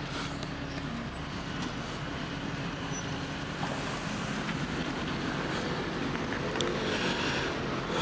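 Police patrol car driving, with the steady hum of its engine and tyres heard from inside the cabin.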